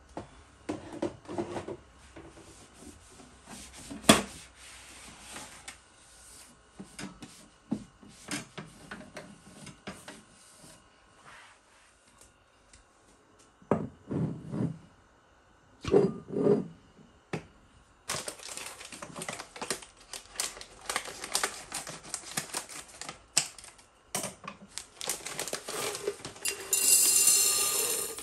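Kitchen handling sounds: scattered clicks and knocks of items being picked up and set down, then a long run of rapid tapping. A louder steady noise lasts about a second and a half near the end.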